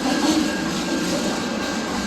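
A train passing on the tracks, with a steady rolling wheel-and-rail noise that holds an even level throughout.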